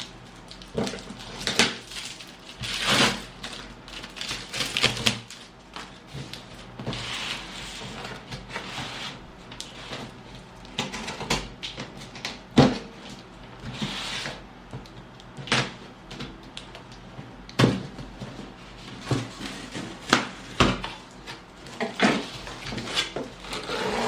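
Cardboard shipping box being opened by hand: a knife cutting packing tape, tape tearing, and the cardboard flaps scraping and knocking. The sounds come in irregular sharp knocks and short rasps.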